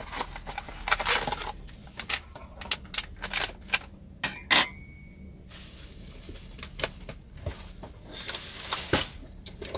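A paper pouch of dry apple crisp topping mix being handled and poured into a bowl: paper rustling with small taps and clicks, one sharp ringing clink about halfway through, and a longer rustle near the end.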